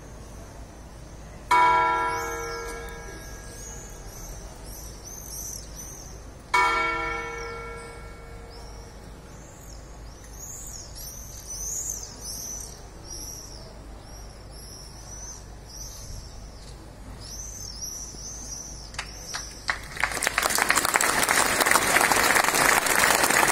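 Clock-tower bell struck twice, about five seconds apart, each stroke ringing out and dying away, with birds chirping high above. About twenty seconds in, a large crowd breaks into applause, the loudest sound here.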